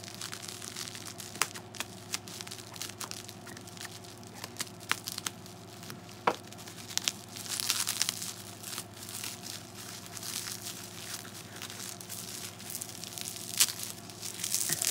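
Plastic bubble wrap being crinkled and torn at by hand to get a tightly wrapped package open: scattered sharp crackles, with louder rustling and tearing at about eight seconds and again near the end.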